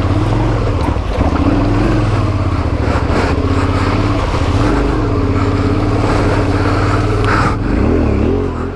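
Motorcycle engine revving under load, its pitch rising and falling as the throttle is worked.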